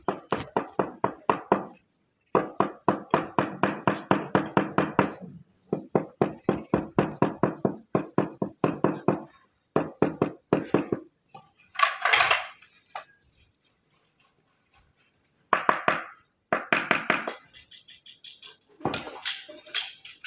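Rapid runs of sharp tapping, about eight taps a second, in bursts of one to three seconds separated by short pauses. A brief scraping hiss comes about twelve seconds in.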